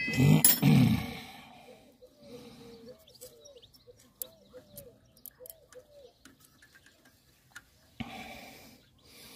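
Metal parts and tools clinking together with a short ringing clank in the first second. Then faint, quick chirps repeat for a few seconds, with small ticks.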